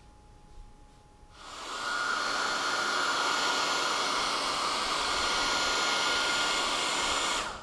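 Handheld hair dryer blowing on wet watercolour paper to force it dry. It comes on about a second and a half in with a steady rush of air and a high whine, and cuts off just before the end.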